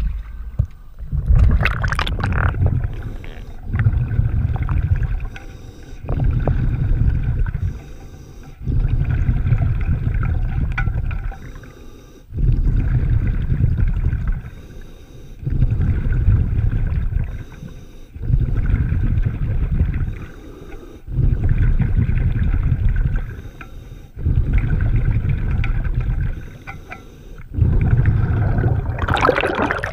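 Diver breathing through a regulator underwater: a low bubbling rumble of exhaled air in regular bursts about every three seconds, with quieter breaths in between and a few sharp clicks.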